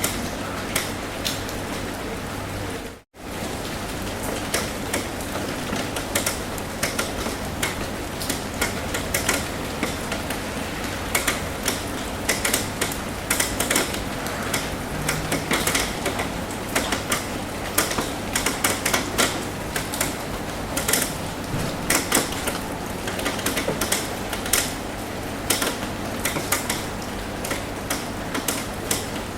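Rain drumming on a metal roof: a steady hiss scattered with many irregular sharp taps of drops, which grow denser later on. It cuts out for a split second about three seconds in.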